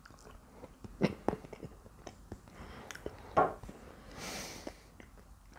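A person chewing a mouthful of soft, mushy pease pudding taken off a metal spoon: quiet mouth and chewing noises with a few light clicks, and a breath out through the nose about four seconds in.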